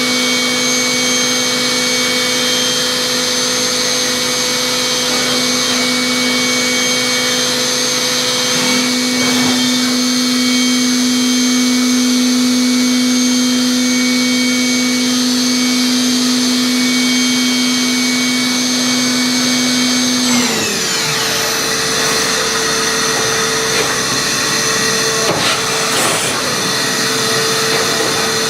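Matsuura 5-axis CNC machining center running: a steady mechanical whine over a constant rush of machine noise. About two-thirds of the way through the whine glides down in pitch as a motor slows, and a different steady hum carries on.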